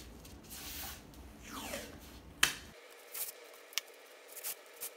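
Masking tape being pulled off its roll in two ripping pulls, each falling in pitch, then torn off with a sharp snap about two and a half seconds in, followed by small crinkles and ticks as the tape is pressed onto and lifted from the carpeted cabinet covering.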